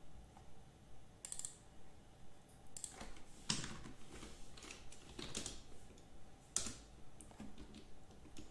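Irregular taps of computer keyboard keys and mouse clicks, a few short clicks spread unevenly over several seconds, as a value is typed in.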